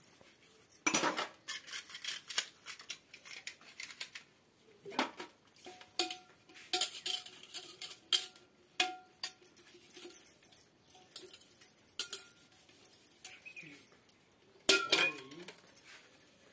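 Stainless-steel utensils and cups clinking and clattering as they are washed by hand and set down on a large steel tray, some knocks leaving a short metallic ring. The loudest clatters come about a second in and again near the end.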